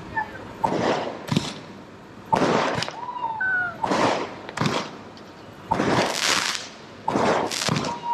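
Fireworks going off: a string of about eight or nine bangs and crackling bursts, each trailing off briefly, with a short whistling tone about three seconds in.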